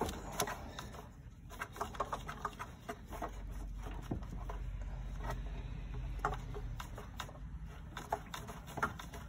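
Runs of quick clicks from a 3/8 ratchet driving a socket-type oil filter wrench, with scattered knocks of the tool against the engine, as the oil filter is loosened from above.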